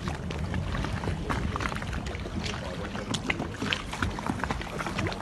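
Water splashing and sloshing at the surface close beside a small boat, stirred up by a beluga whale swimming alongside, with a steady low rumble of wind on the microphone.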